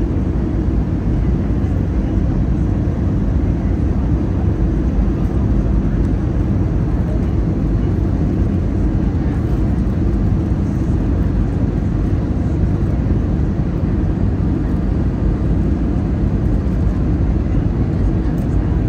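Steady low rumble of airliner cabin noise, unchanging in level.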